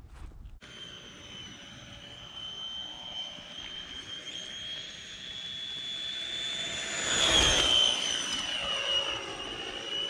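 Scratch-built RC oval car running laps, its motor giving a steady high whine that swells as the car comes close around 7 to 8 seconds in, dipping slightly in pitch as it passes, then fading a little.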